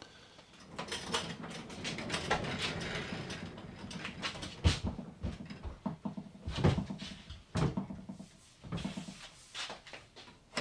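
A heavy rolling workbench (a Husky adjustable workbench with a wooden cabinet) being pushed on its casters across a concrete floor, with a rolling rattle in the first few seconds and several knocks and bumps as it is set in place.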